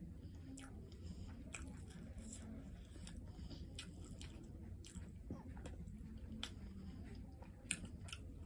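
Close-miked eating sounds: quiet chewing and mouth smacks, with scattered soft clicks as fingers pick the last rice and tomato stew off a plate. There is one sharper click near the end.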